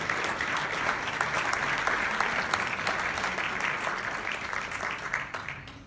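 An audience applauding in a large room, many hands clapping together. The clapping thins out and dies away near the end.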